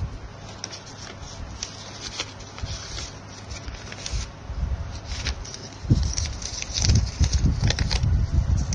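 Paper rustling and crinkling as a handmade paper blind bag is handled and opened, with short crackles throughout. From about six seconds in, a run of louder low thumps and bumps joins it.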